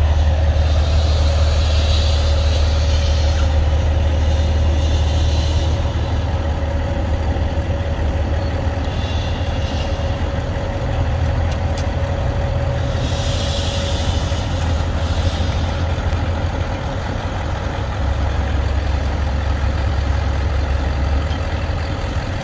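Heavy diesel engine of a semi-truck running steadily as it slowly pulls a lowboy trailer away: a deep, constant rumble with a faint steady whine on top, and a hiss that comes and goes twice.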